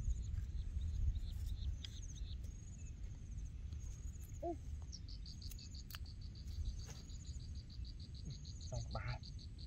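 Insects chirping, with a fast, even pulse of about five chirps a second setting in around halfway, over a low rumble and a few faint clicks.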